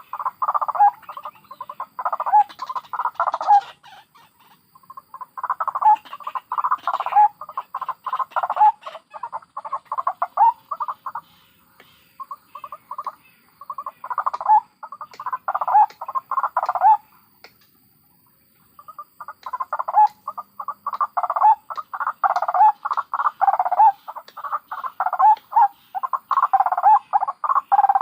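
White-breasted waterhens (ruak-ruak) cackling: fast runs of harsh, repeated croaking notes in several bouts, with a short break a few seconds in and a longer pause about two-thirds of the way through.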